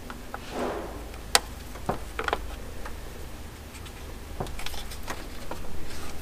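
Scattered small clicks and taps of pliers and plastic fittings being worked at the fuel rail line connection, with one sharp click about a second in.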